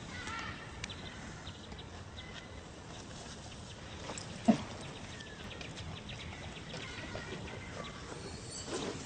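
Animal calls outdoors: scattered short chirps and clicks, with one brief, loud, low call about four and a half seconds in.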